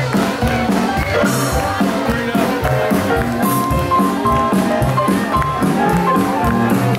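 Live jazz band playing an upbeat number with a steady drum beat, and a short high note repeated several times through the middle.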